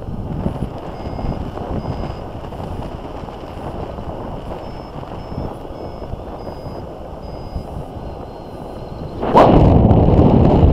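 Wind rushing over a paraglider's harness-mounted camera microphone in flight, with faint short high beeps now and then. About nine seconds in it jumps suddenly to a much louder wind rush.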